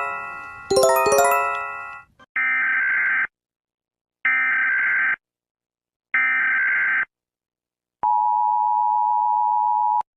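Emergency Alert System (EAS) alert audio. It opens with the ringing end of two chime strikes. Then come three short, harsh data bursts of the SAME header, about two seconds apart. About eight seconds in, the steady two-tone attention signal starts and stops abruptly just before the end.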